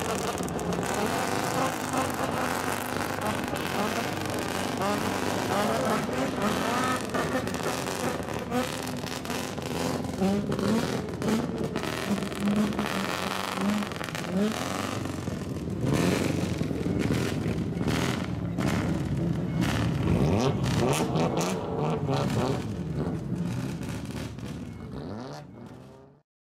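Several modified cars with straight-pipe exhausts pulling away one after another, their engines running loud and revving with rising and falling pitch, with sharp cracks in the exhaust note. The sound fades out near the end.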